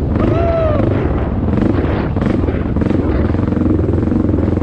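Dirt bike engine running steadily, with even firing pulses. A brief tone rises and falls shortly after the start.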